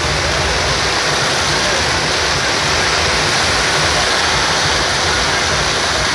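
Dense barrage of aerial fireworks, with bursts and crackling so close together that they merge into one loud, steady noise.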